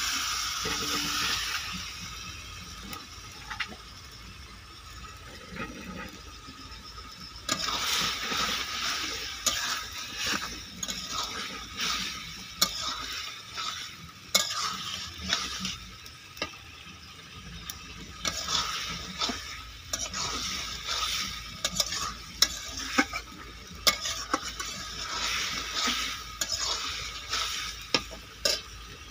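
Chicken masala sizzling in a steel kadai over a wood fire, loudest in the first second as a splash of water hits the hot pan. Then a spatula stirs and scrapes through the thick curry with frequent clicks against the pan, over a steady sizzle, as the masala is slow-fried (kosha).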